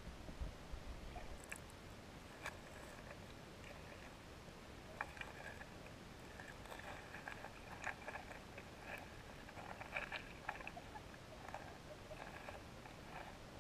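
Underwater river ambience picked up through a GoPro's waterproof housing: faint, irregular clicks and crackles, busiest in the middle stretch, over a low hiss, with a low rumble in the first second and a half.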